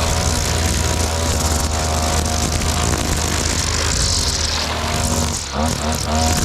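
Briggs & Stratton 450E series lawnmower engine running steadily after its service, its pitch dipping briefly and recovering about five and a half seconds in.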